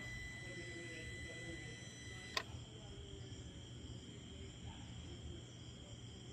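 A single sharp click about two seconds in, over a faint steady hum and a steady high-pitched whine; one of the whine's tones stops at the click.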